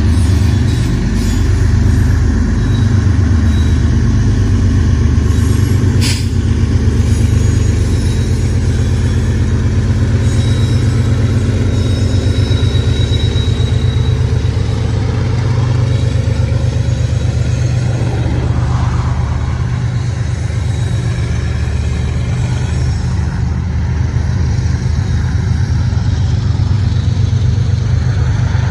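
BNSF diesel-electric locomotives working under load as a double-stack container train pulls away from a stop, with a heavy, steady low rumble. The stack cars then roll past, with a sharp knock about six seconds in.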